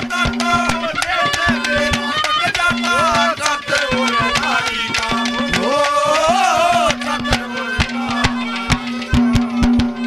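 Haryanvi folk ragni accompaniment: a melody line with wavering pitch over a steady held drone, driven by rapid hand-drum strokes.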